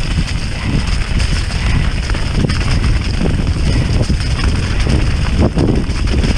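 Wind buffeting the rider-mounted camera's microphone during a fast mountain-bike descent, with tyre noise and the bike rattling over rough ground, the knocks thickening near the end.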